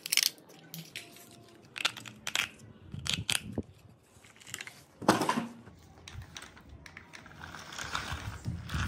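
Sharp plastic clicks and knocks from handling a toy RC jeep and fitting batteries into its remote, with one louder knock about five seconds in. Near the end a crinkling rustle of plastic sheeting sets in as the toy jeep drives across it.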